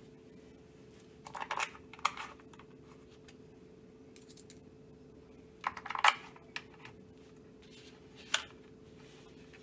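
Light clicks and rattles of small screws and stock parts being handled, in three short clusters, over a faint steady hum.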